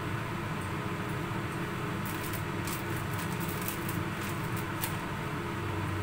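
Steady hum of a running kitchen exhaust fan, with a cluster of faint high crackles about two to five seconds in.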